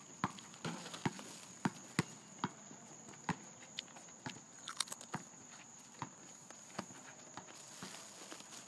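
A basketball bouncing on an asphalt court and sneakers slapping the pavement, heard as irregular sharp knocks while players run up the court.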